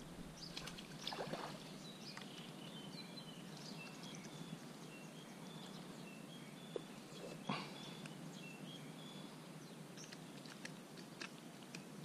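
Quiet outdoor ambience with a run of faint, short high chirps from about two seconds in until about nine, and a few soft rustles and knocks of fishing tackle and bait being handled, the clearest about a second in and past the middle.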